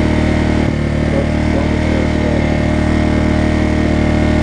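Motorcycle engine idling steadily in neutral, not revved, while the rider holds the clutch.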